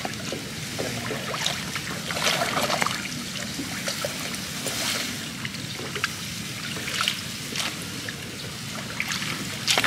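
Water trickling and splashing in short, irregular spurts around a small boat as a fishing set line is worked.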